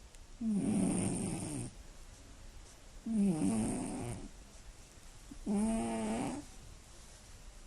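Scottish Fold cat snoring loudly in its sleep: three snores about two and a half seconds apart, the first a rough rasp and the next two with a clearer pitched drone.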